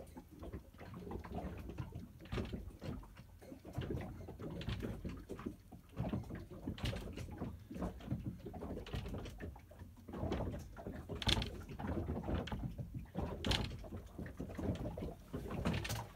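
Irregular creaks and knocks inside the wooden cabin of a 1957 Hubert Johnson sea skiff afloat, over a low rumble, with a few sharper clicks in the second half.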